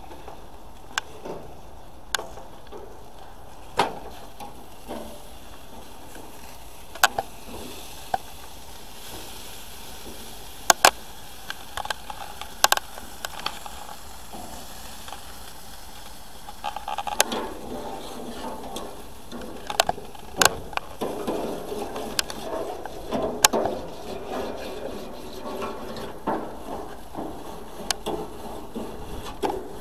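Scattered clicks and clacks of a utensil against metal grill grates and a plate as grilled chicken pieces are lifted off the grill and plated, over a faint hiss. From about halfway in, a busier jumble of background sound joins the clicks.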